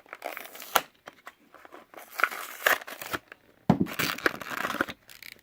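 Blister-card packaging of a diecast toy car being torn open by hand: plastic and cardboard crinkling and tearing unevenly, with a few sharp cracks.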